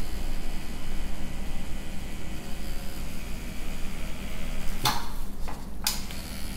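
Electric tattoo machine buzzing steadily in a small room, with two short clicks about five and six seconds in.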